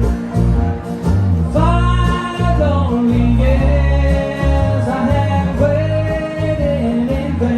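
Bluegrass band playing acoustic string instruments, with guitar and bass, and singing that comes in about a second and a half in.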